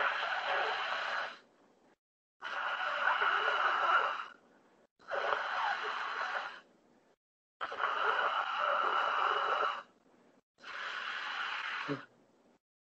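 A man taking deep, noisy breaths through a wide-open mouth in a postural breathing exercise: five long breaths, each about two seconds, with short silent pauses between. Heard over a video call.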